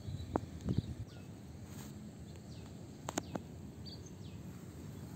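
Birds chirping in short, falling calls over a steady outdoor background. A few footsteps and rustles in grass and weeds come near the start and again about three seconds in.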